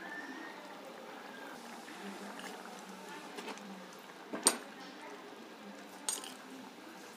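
A metal ladle stirring cooked dal and green tomatoes in a clay pot, with soft wet stirring sounds and one sharp clink of the ladle against the pot about halfway through, then a lighter knock near the end.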